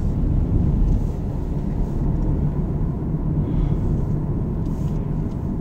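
Steady low rumble of a car's tyres and engine, heard inside the cabin while it drives along at road speed.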